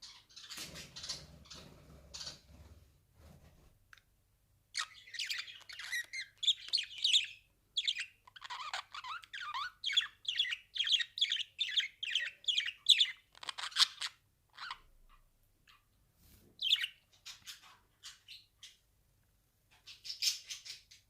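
Budgerigar chirping and chattering in a string of short, high calls, coming about two a second in a dense run through the middle, then more scattered with pauses, and a last burst near the end.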